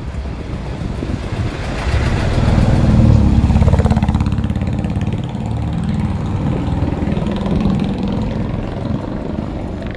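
Wind and road rumble on the microphone of a moving bicycle, with a motor vehicle's engine swelling past, loudest about two to four seconds in.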